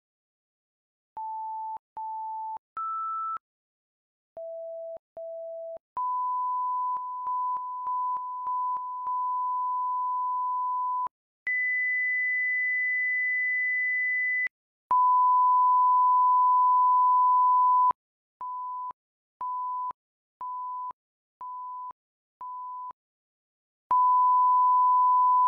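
Pure sine-wave test tones from a 5.1 surround sound test. Several short beeps at different pitches come first, then a long steady tone, a higher tone held about three seconds, another long tone, a run of six short beeps, and a final long tone.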